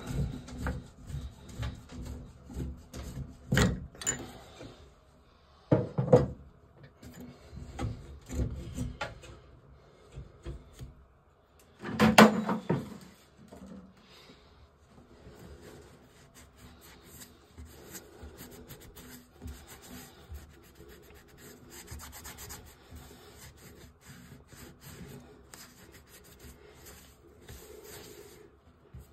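Tongue-and-groove pliers working a sink drain flange loose, metal scraping and rattling with three loud knocks over the first twelve seconds. After that, a rag rubs the sink basin around the open drain hole in steady, quieter strokes.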